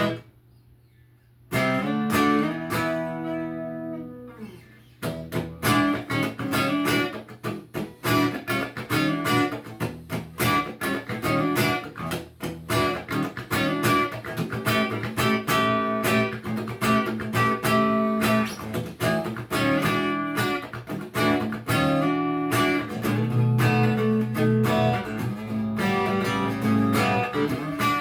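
Electric guitar with a Wolfetone P90 neck pickup, played through a Peavey JSX amp with the guitar's volume knob rolled back to about 2.5 or 3 and the tone knob fully up. After a brief pause a chord rings out about a second and a half in, and from about five seconds in there are continuous picked chords and riffs.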